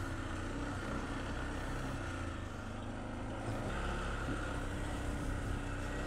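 Arctic Cat 700 cc ATV engine running while riding a trail, picking up revs and growing louder a little past halfway through.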